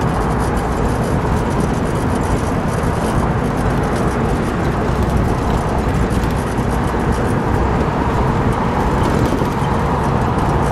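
Steady wind and road noise in a 1952 Ford Crestline Sunliner convertible cruising with the top down, its flathead V8 running smooth and quiet underneath.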